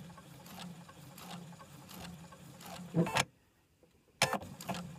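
Electric sewing machine running steadily while stitching a quarter-inch seam, a low hum with faint needle clicks. About three seconds in there is a brief louder sound, then the sound drops to near silence for about a second before a sharp click and the running resumes.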